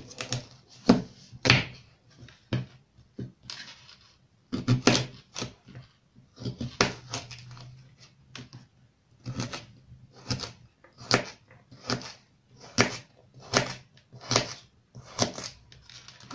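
Kitchen knife chopping a carrot into cubes on a cutting board: a string of sharp chops, uneven at first, then steady at a little more than one a second.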